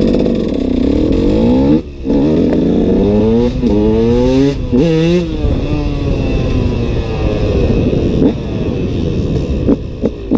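KTM SX 125's single-cylinder two-stroke engine revving hard under acceleration, its pitch climbing in repeated rising sweeps with a brief cut just before two seconds in. Near the end it gives short, sharp throttle blips.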